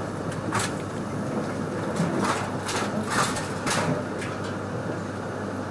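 Steady running noise inside a Joetsu Shinkansen 200 Series passenger car travelling at speed, with several short sharp clicks or knocks in the middle.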